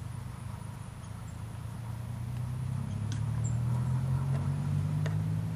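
A vehicle engine running with a low, steady hum that slowly grows louder and slightly higher in pitch, then eases off near the end, with a couple of faint clicks.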